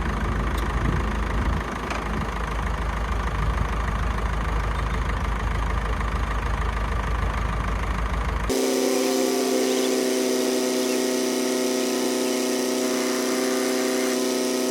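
Tractor engine idling. About eight seconds in the sound cuts abruptly to an engine held at a higher, steady speed, its hum rising briefly before it settles, as the tractor runs the round baler.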